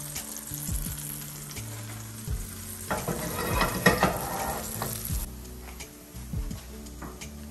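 Hot food sizzling, rising to a loud burst in the middle that fades out after a couple of seconds, over background music with low bass notes.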